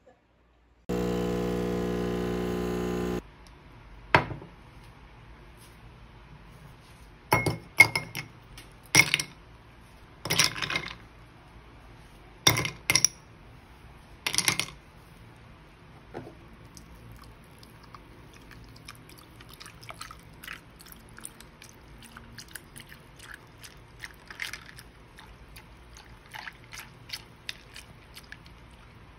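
A steady electric appliance hum for about two seconds. Then ice cubes drop into a ceramic cup with about eight sharp clinks. After that come faint crackles and light clinks as the iced drink is stirred.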